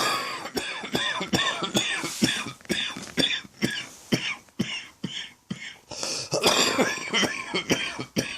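Person coughing in a long fit of rapid, repeated coughs, with a brief lull about two-thirds through before the coughing starts up again. It is a cough from a throat infection.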